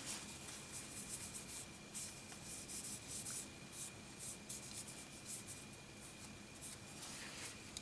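Soft, irregular rubbing strokes of oil being wiped over a folding knife's high-carbon steel blade.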